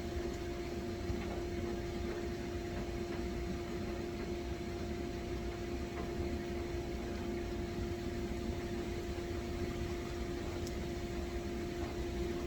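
Steady mechanical hum with a constant mid-pitched tone over a low rumble.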